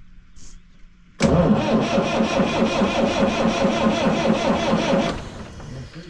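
Detroit Diesel Series 50 inline four-cylinder diesel cranking on its starter for about four seconds without firing, a steady rhythmic churn that begins about a second in and cuts off suddenly. It is a crank-no-start.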